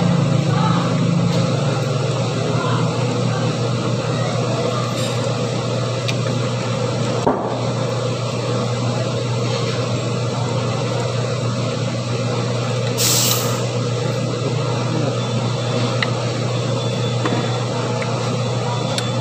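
A steady low mechanical hum, with a single sharp click about seven seconds in and a brief burst of hiss about thirteen seconds in.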